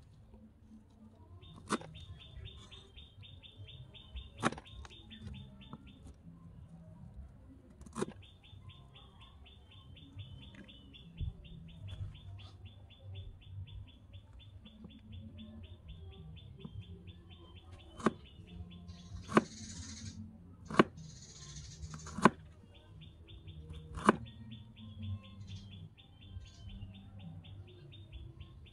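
A small kitchen knife knocking on a tiny wooden cutting board while slicing vegetables: about eight sharp separate knocks, mostly in the second half, with a short rustle of cutting in between. A steady, rapid high chirping trill runs behind it, stopping and starting in long stretches.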